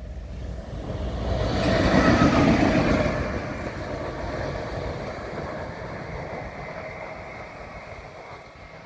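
ÖBB Taurus electric locomotive running light past at speed: wheels rumbling on the rails, loudest about two seconds in, then fading as it runs away.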